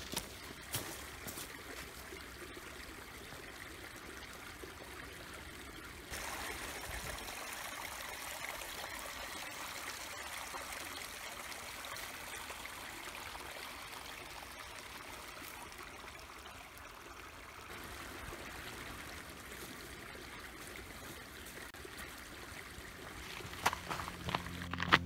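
Small woodland brook trickling over mossy rocks, a steady flow of water that gets louder about six seconds in. A few sharp knocks near the end.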